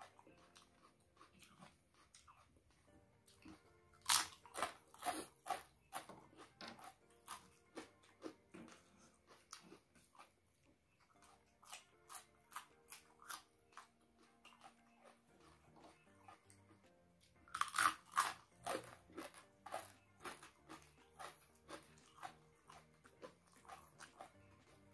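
Close-up crunching and chewing of fried crackers and raw red chilies: two loud crunchy bites, about 4 seconds in and again near 18 seconds, each followed by a run of chewing at about two chews a second. Faint background music underneath.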